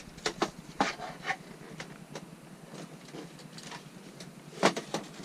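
Scattered clicks and knocks of parts being handled and fitted, a few close together at first, then sparse, with the loudest two near the end.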